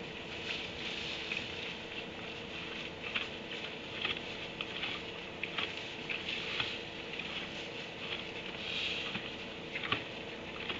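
Donkeys shuffling and nosing through the stall bedding: soft scattered rustles and crunches, with one sharper knock near the end, over a steady hum and hiss.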